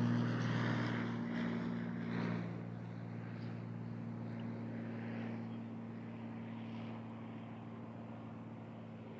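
Cessna 172's piston engine and propeller making a steady drone that fades gradually as the aircraft moves away.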